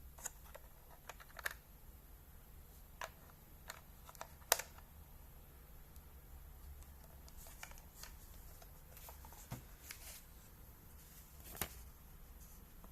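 Handling noise at close range: irregular light clicks and taps with some soft rustling, the sharpest about four and a half seconds in and another near the end, over a faint steady low hum.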